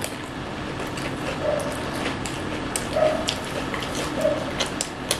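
Eating by hand from plates: chewing and lip-smacking with scattered light clicks, and a few brief faint whine-like sounds.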